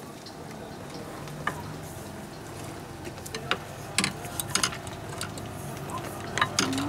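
Small irregular clicks and scrapes of a hand screwdriver driving a screw into a rope end in the tiller extension's fitting, over a steady low hum.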